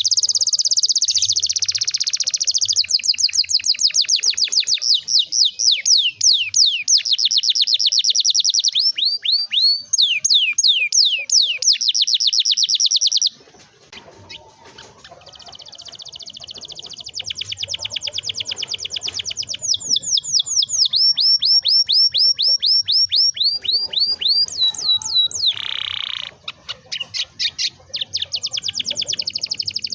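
Domestic canary singing long rolling trills: fast runs of repeated high notes, changing from one trill to the next. The song breaks off abruptly a little before halfway and picks up again a couple of seconds later.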